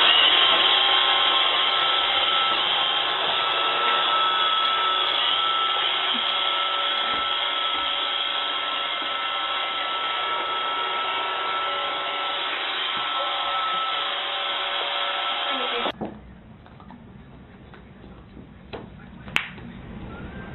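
Robot vacuum cleaner running with a steady motor whir and whine, heard close up. It cuts off abruptly about three-quarters of the way through, leaving quieter background with a single sharp click.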